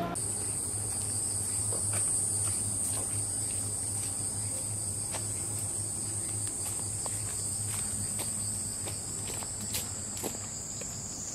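Cicadas making a steady high-pitched drone that sinks slightly in pitch near the end, with faint footsteps on a dirt path.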